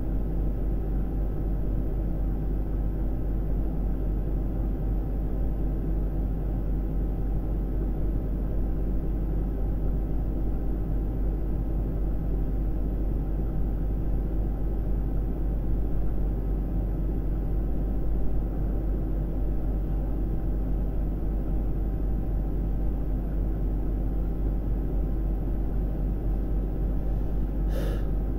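A steady low rumble and hum, unchanging throughout, with one short click near the end.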